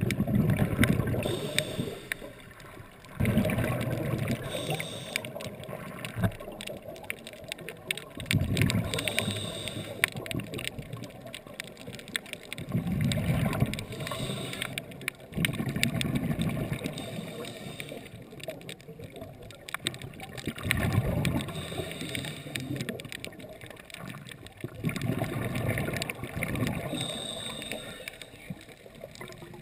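Scuba diver breathing through a regulator underwater: exhaled bubbles gurgle and rumble in bursts about every four to five seconds, about seven times, heard through a GoPro dive housing, with fine crackling between them.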